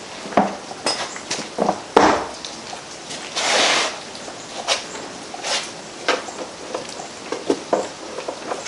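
Metal engine parts and hand tools clinking and knocking on a steel workbench while an engine is being put back together, with one sharp knock about two seconds in and a short rushing hiss a second or so later.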